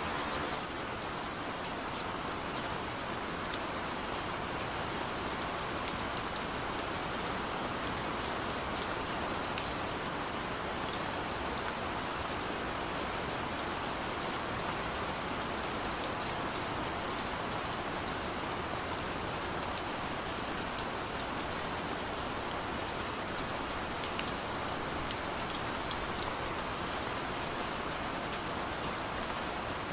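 Steady rain falling: an even, dense hiss scattered with many small, sharp drop ticks.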